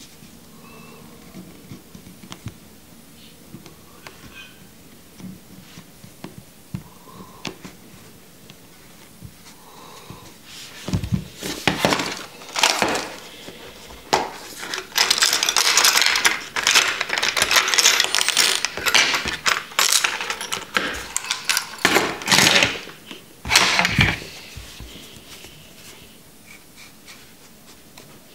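Close handling of cotton wick and tools on a rebuildable vape atomizer: crackly rustling of the cotton in repeated bursts over about thirteen seconds, with small metallic clicks. Quieter light ticks before and after.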